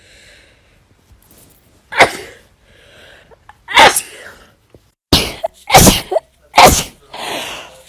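A person sneezing in a fit, about five loud sneezes, the last three quickly one after another, with breathy intakes of air before and between them.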